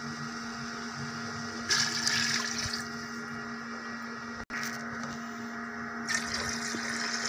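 Water poured into a pressure cooker over raw mutton pieces, splashing in the pot about two seconds in, with a second stretch of sloshing near the end.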